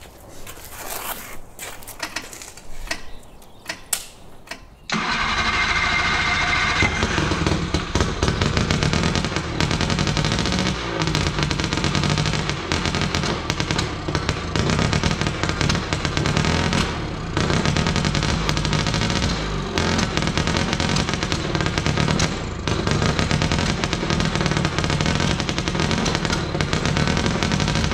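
Four-cylinder two-stroke engine on a test stand, coming in abruptly about five seconds in after a few faint clicks. It keeps running loudly, its speed and loudness rising and falling with the throttle and dipping briefly now and then. It is running untuned on a makeshift carburettor that the owners doubt is any good.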